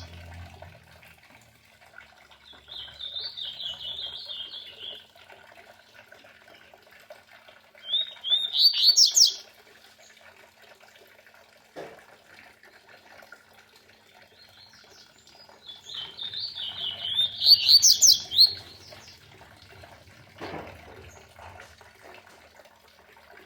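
Double-collared seedeater (coleiro) singing in three bouts of quick, high, rising notes, over the faint steady trickle of a small water cascade.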